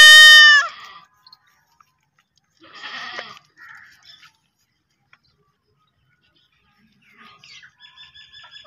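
A newborn goat kid bleats: one loud, high bleat about a second long at the very start, followed by a couple of fainter, rougher sounds.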